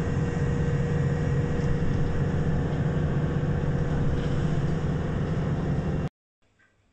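Steady low running noise of a moving bus heard from inside the passenger cabin, engine and road noise together with a faint steady hum; it cuts off abruptly about six seconds in.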